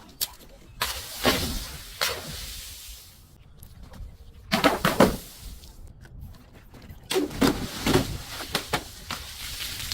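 Objects being crushed: three bursts of sharp crunching and cracking, about a second in, near the middle and about seven seconds in, with quieter gaps between.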